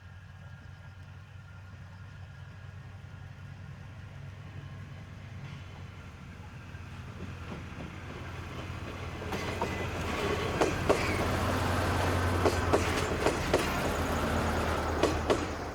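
KiHa 200-series diesel railcar on the move, its engine giving a steady low hum and its wheels clicking over rail joints. It grows louder over the second half, then drops away quickly near the end.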